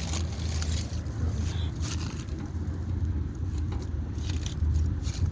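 Steady low rumble with scattered crackles, outdoors among air-conditioner condensers.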